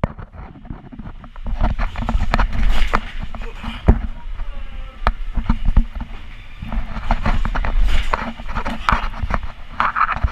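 Irregular knocks and thumps of bare feet moving and climbing on a wooden stage structure, heard close up from a body-worn camera, with a constant low rumble and faint voices in the background.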